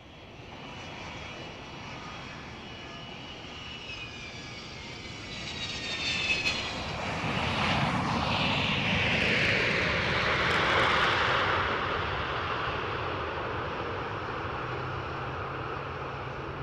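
Jet aircraft coming in to land: a high engine whine whose tones slide downward grows steadily louder, peaks as the jet passes about halfway through, then eases off into a steady rumble.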